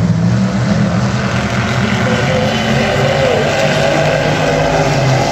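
Several vintage dirt-track race cars' engines running together as the field laps the track, with a steady drone and a car's pitch rising and falling about three seconds in.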